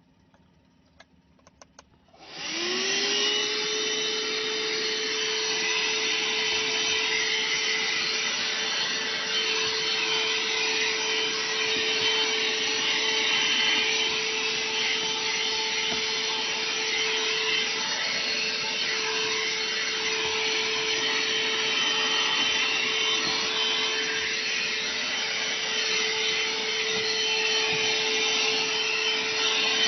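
Oshotto 2-in-1 car vacuum cleaner switched on after a few faint clicks. Its motor spins up, its whine rising briefly, then runs steadily with a strong rush of air.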